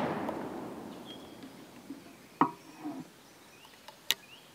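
The echo of a shotgun blast dies away, then a single-shot 20-gauge break-action shotgun gives a few metallic clicks, about halfway through and again near the end, as the action is handled and a shell is loaded. Faint bird chirps can be heard.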